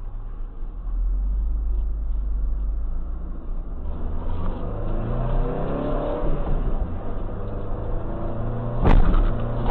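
Vehicle engine heard from inside the cab, droning low and then revving up with rising pitch from about four seconds in. A single sharp knock comes near the end.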